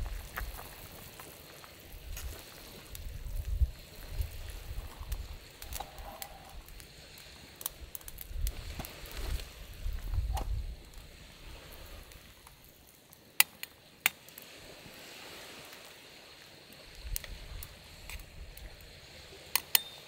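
Pot of water and vegetables boiling over a small wood fire in a folding twig stove, with a ladle stirring and skimming it. Low rumbling comes and goes, and a few sharp clicks sound about two-thirds through and again near the end.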